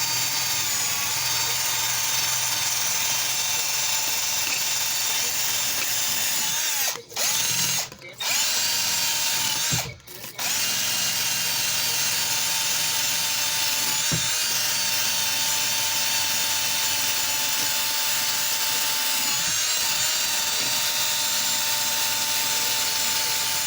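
Electric drill spinning a rust-removal wheel on cast iron, running steadily with a high whine. It cuts out briefly three times between about seven and ten seconds in.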